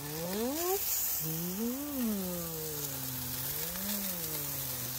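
A person humming a long, wavering "mmm": a short upward glide, then a held hum that rises and falls in pitch twice, over faint sizzling from the grill.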